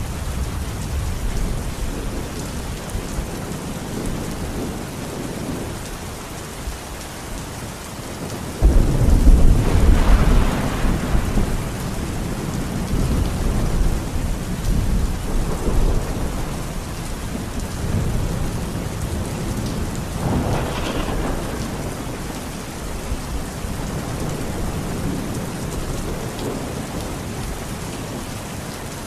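Heavy steady rain with thunder: a sudden loud clap about a third of the way in that rolls on for a few seconds, followed by further rumbles of thunder.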